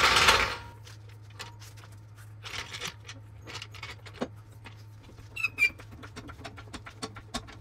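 Hydraulic floor jack being slid under a car and pumped to lift it: a short scraping rush at the start, then scattered clicks and knocks from the jack's handle and lifting arm, over a steady low hum. Two brief high chirps come about five and a half seconds in.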